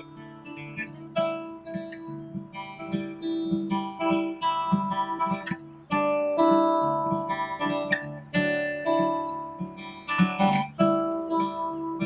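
Background music: an acoustic guitar picking notes and chords, each note dying away after it is struck.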